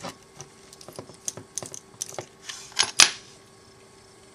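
Small metallic clicks and ticks of a Phillips screwdriver working the tiny screws out of a model locomotive's circuit board. There is a short scrape about two and a half seconds in, and a sharper click, the loudest, about three seconds in.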